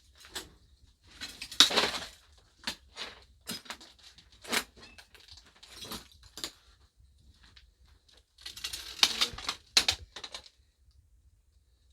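Irregular clinks, clicks and clatter of small hard objects and debris being moved about and rummaged through, with two busier stretches of rustling clatter about a second and a half in and again near the end.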